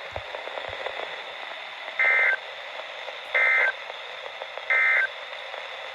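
NOAA Weather Radio SAME end-of-message code: three short identical digital data bursts, about a third of a second each and just over a second apart, over steady radio static. The bursts mark the end of the tornado watch broadcast.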